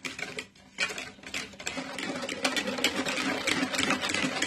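Wire balloon whisk beating eggs in a plastic mixing bowl: a fast, continuous rattle of the wires clicking against the sides of the bowl, with a short break just under a second in.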